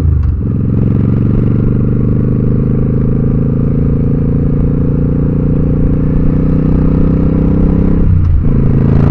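Motorcycle engine and exhaust pipes pulling under acceleration, the pitch climbing steadily. The revs drop briefly for a gear change at the start and again about eight seconds in.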